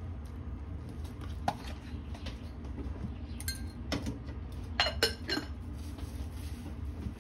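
Kitchen utensils clinking against a stainless steel mixing bowl: several sharp, ringing metallic knocks, the loudest ones bunched about five seconds in, over a steady low hum.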